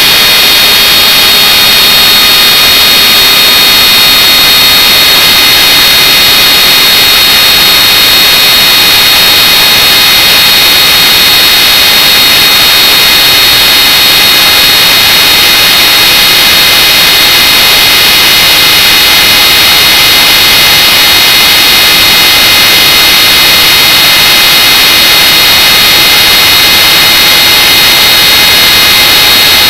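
Welling universal brushed AC washing-machine motor running flat out with no load: a loud, steady high whine over the hiss of brushes on the commutator.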